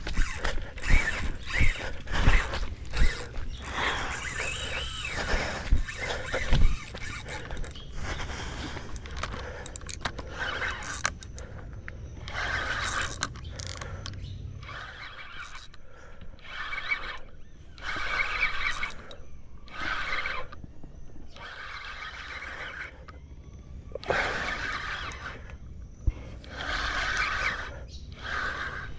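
Fishing reel being wound in short bursts of about a second each, a whirring, squealing crank sound with pauses between, as a lure is worked back in. In the first half, clicks and knocks of handling the rod and reel sound over a low rumble.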